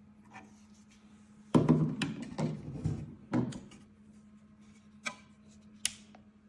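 A run of loud knocks and clatter, like a hard case or its parts being handled, then two sharp clicks, over a steady low hum.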